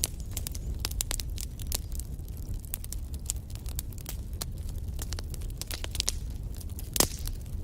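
Wood fire burning in a fireplace: a steady low rumble of flames with frequent irregular crackles and pops, the loudest pop near the end.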